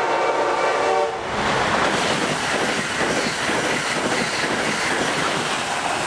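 Amtrak train's K5LA five-chime air horn sounding a chord that cuts off about a second in. Then the train passes at high speed, a loud steady rush of wheels and air.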